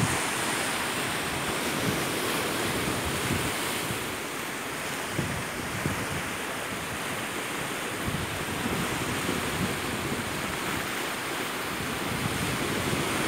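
Sea surf washing over a rocky shore, a steady rushing wash, with wind gusting on the microphone.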